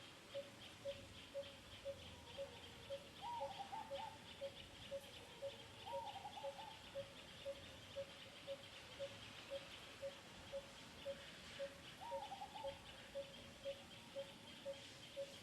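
Faint outdoor animal sounds: a single pitched note repeated evenly about twice a second, over a high insect-like buzz, with three short calls that rise and fall, about three, six and twelve seconds in.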